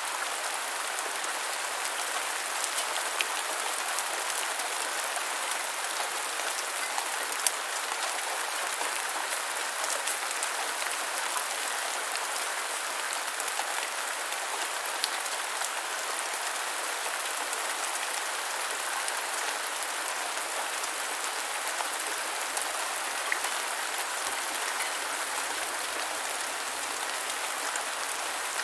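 Steady light rain: an even hiss with many small drops pattering, a few landing a little louder and sharper.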